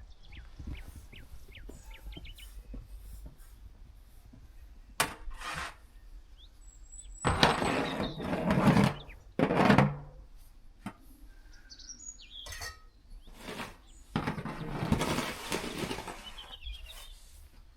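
Small birds chirping faintly, with a few louder rushing noises of a second or two each breaking in. The longest of these comes near the end.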